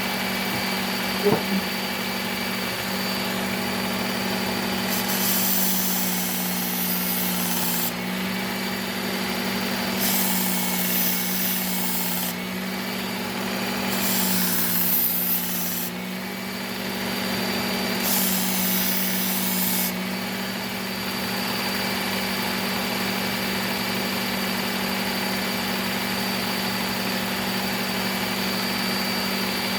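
Powered belt knife sharpener running steadily, with four passes of a knife edge across the moving abrasive belt, each a two- to three-second hiss over the motor's hum.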